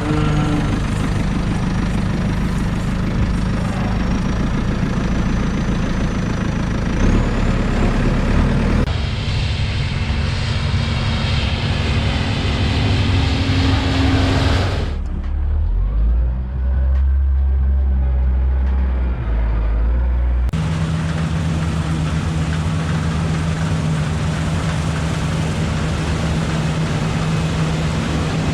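Heavy farm machinery engines running steadily, in several short segments that change abruptly about every five to ten seconds.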